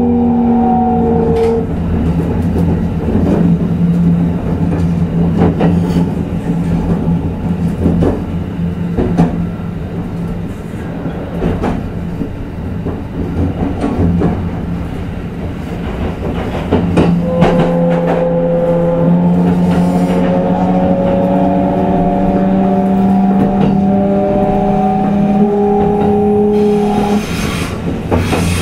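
Kintetsu 22000-series electric train running, heard from inside a motor car. Early on, the traction motor whine falls in pitch and stops as the train slows. It then coasts with wheel noise and rail-joint clicks, and from about two-thirds in the whine rises in pitch as the train accelerates under power, cutting off shortly before the end.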